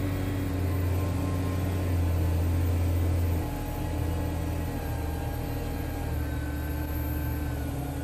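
JCB Fastrac's 6.6-litre diesel engine running out of gear, its revs easing down from about 1,900 to 1,400 rpm. A steady low hum that gets slightly quieter about three and a half seconds in.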